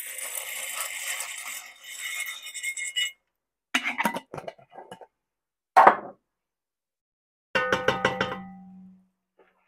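Dry pasta poured from a plastic container into a steel pot, rattling and hissing for about three seconds. A few sharp knocks follow, and near the end a metal clang rings out and fades over about a second and a half.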